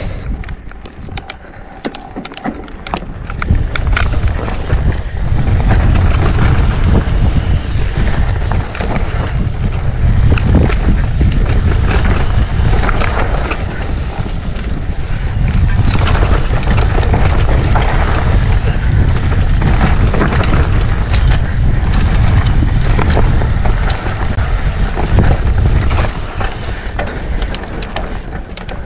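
Wind buffeting a helmet-mounted action camera's microphone on a mountain bike descent, a heavy low rumble that builds a few seconds in and eases near the end, with tyres on a dirt trail and constant clicks and rattles from the bike.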